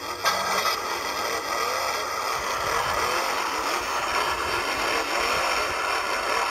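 Sound effect of motor engines running and revving, a dense, steady, rough rumble, laid in as the answer to a call to start engines.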